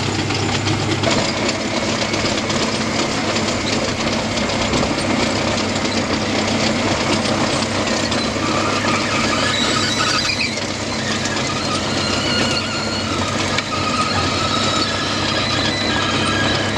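A tracked drainage trencher and a tractor running steadily under load as the trench is dug and the spoil is conveyed off. From about halfway through, high thin metallic squealing comes and goes over the engine noise.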